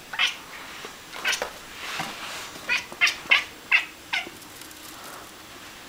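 Bengal cat giving a string of about eight short meows, coming fastest in a quick run around the middle and stopping about four seconds in.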